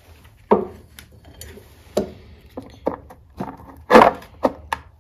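A series of short, sharp metal clicks and knocks, about seven of them, the loudest about four seconds in. They come from cylinder-head bolts being unscrewed by hand and handled on the engine's head as it is taken apart.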